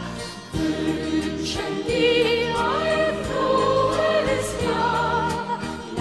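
Music: a song recording with a sung melody, its held notes wavering with vibrato over a light accompaniment.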